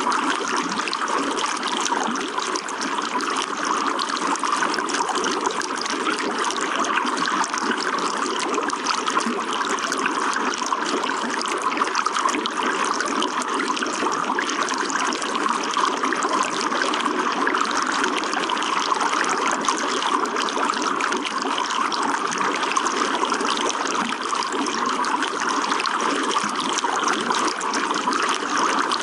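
Running water, a steady, even rush that holds unchanged throughout.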